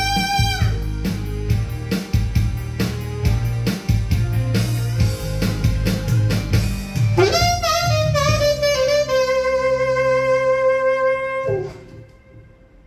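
Saxophone playing a pop ballad melody over a backing track with drums. The sax breaks off a held note just after the start and the backing track carries on alone. About seven seconds in, the sax comes back with a scoop up into a long final note that sinks slightly and is held until everything stops near the end.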